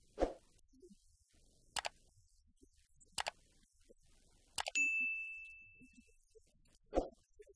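Sound effects of an animated subscribe-button reminder: a series of five short clicks and pops about a second and a half apart, with a bell ding a little under five seconds in that rings on and fades over more than a second.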